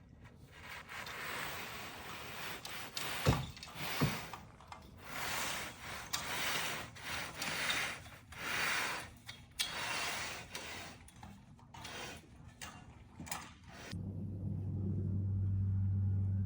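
A hand finishing tool scraped in repeated strokes across wet concrete, with two sharp knocks about 3 and 4 seconds in. Near the end this gives way suddenly to a steady low hum.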